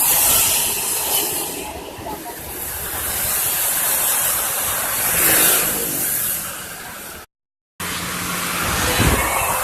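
Heavy rain hissing steadily, with motor traffic running on the wet road and swelling as vehicles pass. The sound drops out completely for about half a second some seven seconds in.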